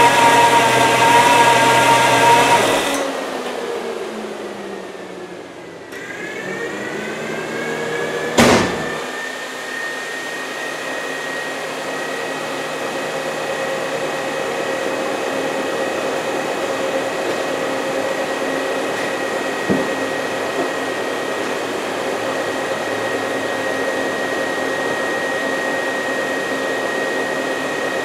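Rebuilt 350 small-block Chevy V8 running, then stopping about 3 s in. A whir from the electric radiator fans winds down in pitch, spins back up about 6 s in and settles into a steady high whir, with one sharp knock about 8 s in.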